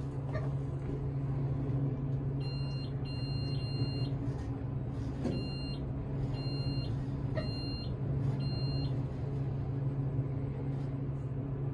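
Otis traction elevator car running, a steady low hum of the ride. A run of short, high electronic beeps sounds about once a second from about two seconds in until near the end.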